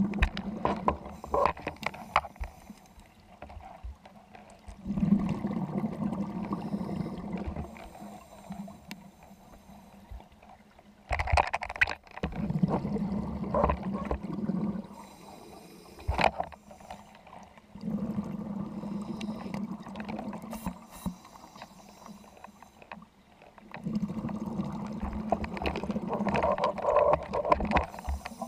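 Scuba diver breathing underwater through a regulator: a burst of bubbling exhaust about every five to six seconds, each lasting two to three seconds, with quieter gaps for inhaling in between.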